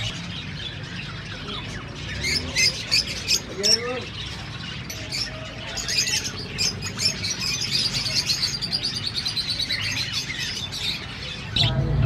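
Caged lovebirds chirping and squawking, many shrill calls overlapping, with a dense run of chatter in the middle.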